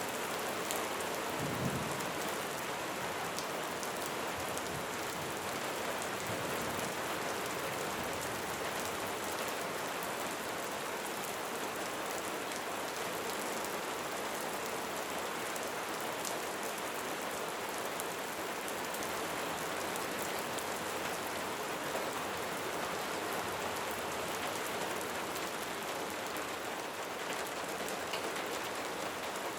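Steady light rain: an even hiss of falling rain with fine, scattered drop ticks. A brief low thump about two seconds in.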